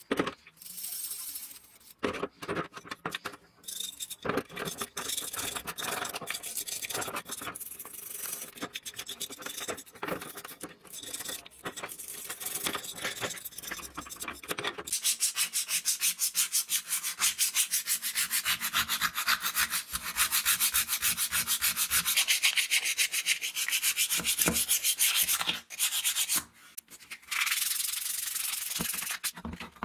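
Stiff brush scrubbing greasy metal angle-grinder gearbox parts by hand, in irregular strokes at first and then in quick, even back-and-forth strokes from about halfway. Near the end a scouring pad rubs the bare aluminium gear housing.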